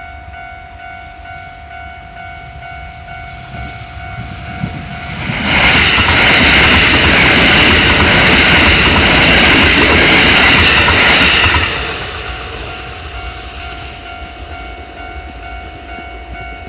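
Japanese level-crossing warning bell ringing its steady electronic "kan-kan" tone. A train passes over the crossing for about six seconds from around five seconds in, its rumble and wheel noise drowning the bell. The bell keeps ringing after the train has gone.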